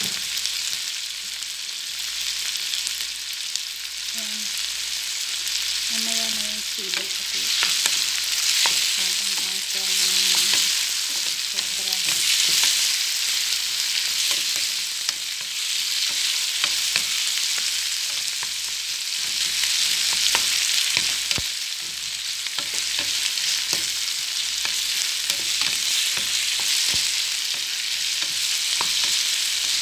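Diced onion, tomato and green bell pepper sizzling as they sauté in a metal frying pan, the sizzle swelling and easing every few seconds as they are stirred. A wooden spatula scrapes and clicks against the pan now and then.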